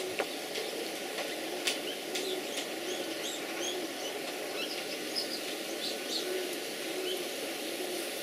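Outdoor garden ambience: small birds chirping in short, scattered calls over a steady background hiss, with a couple of faint clicks in the first two seconds.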